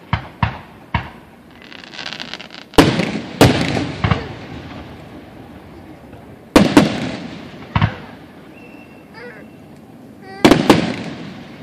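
Aerial fireworks shells bursting overhead: about nine sharp booms at irregular intervals, some in quick pairs, each trailing off in an echoing rumble.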